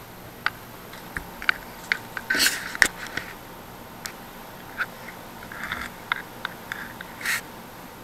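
Handling noise of a camera being moved and set in place over a workbench: a scattered series of sharp clicks and knocks with a few short rustles, the loudest knock about three seconds in.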